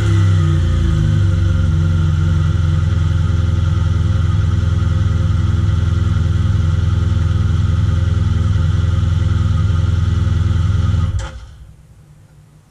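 BMW R1200R boxer-twin motorcycle engine idling steadily at an even pitch just after starting. It is switched off about eleven seconds in, and the sound stops abruptly.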